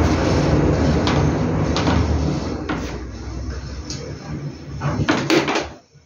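A car passing in the street, its steady noise fading away after about two and a half seconds, with a few light clicks and knocks from tools and a power cord being handled on a workbench; a short cluster of sharper knocks comes about five seconds in.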